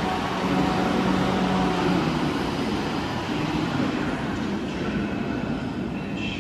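Train running at a station: a steady mechanical noise with a low drone that drops out about two seconds in, the whole sound slowly fading.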